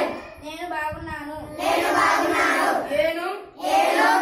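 Call-and-response recitation: a single voice says a word, then a group of children repeat it together in chorus, with a second loud chorus near the end.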